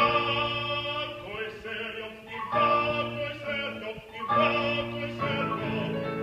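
A male classical voice sings an Italian piece in operatic style with vibrato, accompanied by a grand piano. He sings three held phrases, starting near the beginning, about two and a half seconds in and just past four seconds in.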